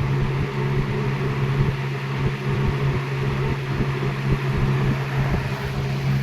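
2001 Lasko Premium model 3723 20-inch box fan running steadily on medium speed: a constant motor hum under an even rush of air.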